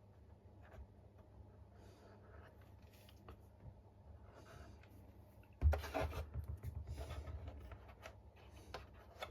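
Small wooden model-kit parts and hull being handled on a workbench: faint rubbing and light taps, then a bit past halfway a louder spell of bumps, knocks and rubbing lasting about two seconds.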